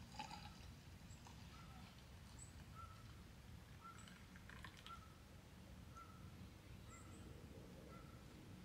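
Near silence: faint outdoor ambience with a low steady rumble, and a faint short bird note repeating about once a second.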